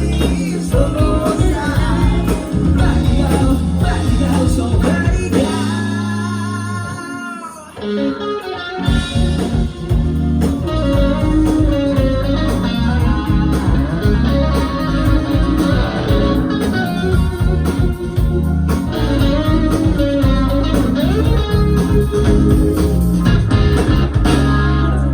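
Live rock band playing the instrumental close of a song, with electric guitar and bass to the fore. The band drops out briefly about seven seconds in, comes back in full, and stops abruptly at the end.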